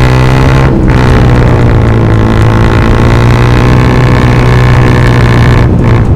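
Yamaha FZ motorcycle's single-cylinder engine running loud through an aftermarket Akrapovic exhaust while riding at steady throttle, a deep, even drone. The note briefly drops away twice, about a second in and near the end.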